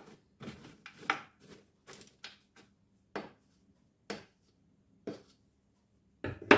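Thermomix spatula pushing spinach down into the stainless-steel mixing bowl, giving short knocks and scrapes about once a second, with a louder clatter near the end.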